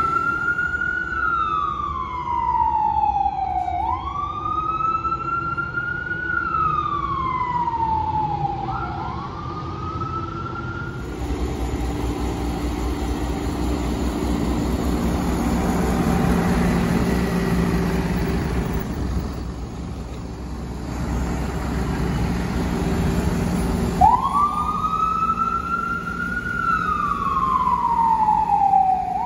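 Fire engine's wail siren sweeping up and down, about five seconds a cycle, over the truck's engine. About eleven seconds in the siren stops and engine noise is left, then the wail starts up again near the end.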